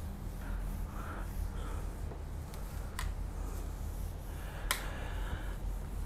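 Gloved hand wiping across a whiteboard in soft rubbing strokes, with two sharp clicks about three seconds in and near five seconds, over a steady low electrical hum.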